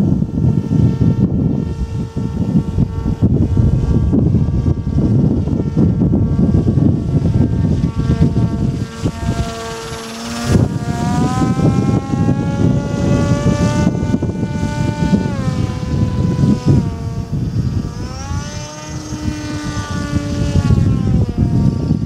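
RC model autogyro's motor and propeller in flight, a pitched whine that climbs sharply about halfway through, holds for several seconds, drops, then rises and falls again near the end as the throttle is worked. A loud low rumble of wind on the microphone runs underneath.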